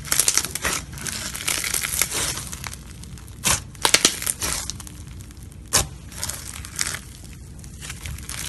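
Floam slime being squeezed and kneaded by hand, its foam beads crackling and crunching continuously, with a few sharper snaps around the middle.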